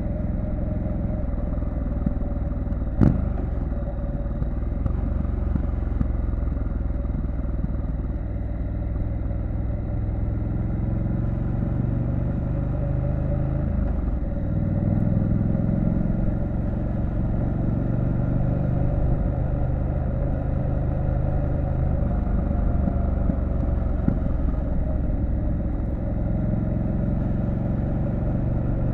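Triumph Street Scrambler 900's parallel-twin engine running steadily at low revs while being ridden. There is a single sharp knock about three seconds in, and the engine note dips and rises again about halfway through.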